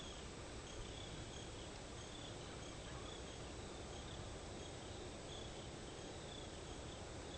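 Cricket chirping faintly: short, evenly spaced chirps about twice a second over a steady background hiss.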